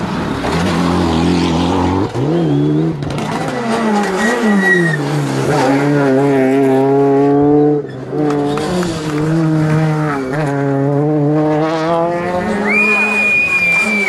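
Rally cars on a tarmac stage, first a Mitsubishi Lancer Evolution and then a Peugeot 208, engines at full throttle, rising and dropping in pitch through gear changes. A short high squeal near the end.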